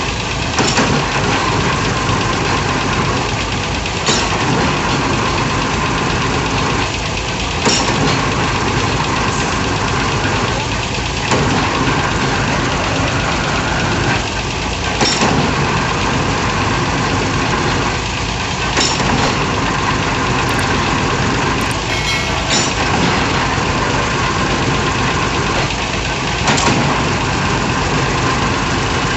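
Engine of a hydraulic piling rig running steadily, with a short sharp clank about every three and a half seconds.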